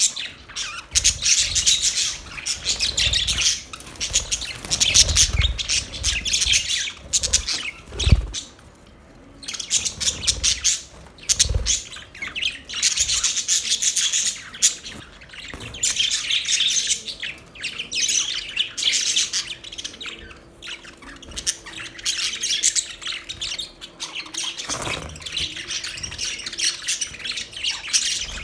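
Budgerigars chirping and chattering in dense bursts of a few seconds, with a short lull about nine seconds in. A few low thumps come between the bursts, the loudest about eight seconds in.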